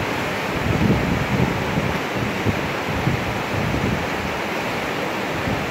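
Whitewater river rapids rushing steadily over a standing wave, with irregular gusts of wind buffeting the microphone.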